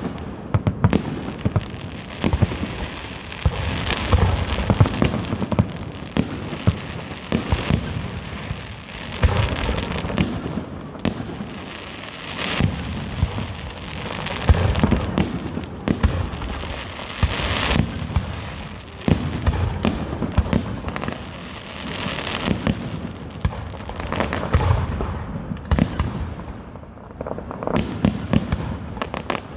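Fireworks going off in quick succession: many sharp bangs, some close together in clusters, over continuous crackling.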